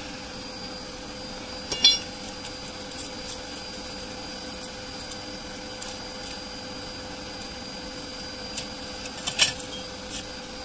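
Steady mechanical hum with a faint, even whine, broken by two sharp clinks, about two seconds in and near the end.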